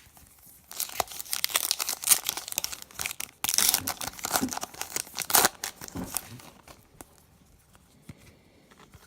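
Trading-card pack wrapper being torn open and crinkled by hand, in a dense crackling run that fades out a couple of seconds before the end.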